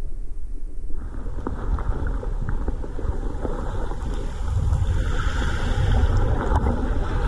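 Muffled underwater rumble of shallow surf water moving around a submerged camera, with scattered faint clicks. The rumble grows louder about halfway through.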